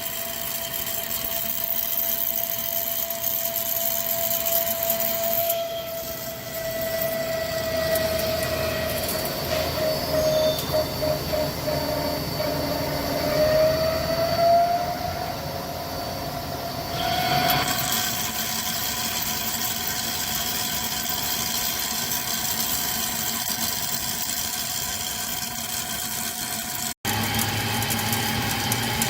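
CNC lathe running while machining a steel pinion shaft, with a steady whine and a high-pitched tone over cutting noise. The tone wavers and slides up about halfway through, and the sound changes abruptly near the end.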